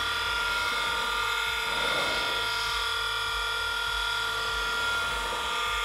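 Electric motor of a combination sharpening machine for planer knives and chisels, running steadily with an even whine as its cup grinding wheel spins free, not yet touching the knife.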